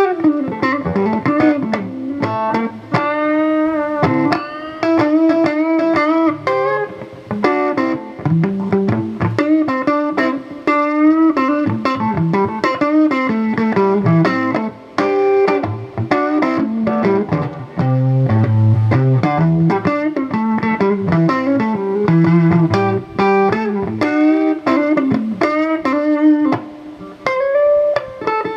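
Live blues music in an instrumental break: a lead guitar plays single-note lines with bent notes over a low backing line.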